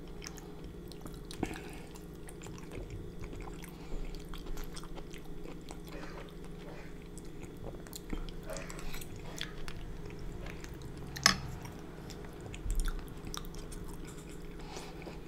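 Close-miked chewing and mouth sounds of a person eating soft seafood in a creamy Alfredo sauce, with one sharp click about eleven seconds in.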